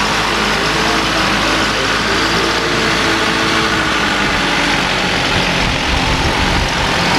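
Engine of a small tarp-covered dump truck running steadily as the truck drives slowly along a dirt track, a continuous rumble.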